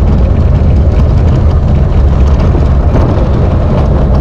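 Wind buffeting the microphone while riding in the open bed of a moving Nissan Navara pickup, mixed with the truck's engine and tyre noise: a loud, steady low rumble.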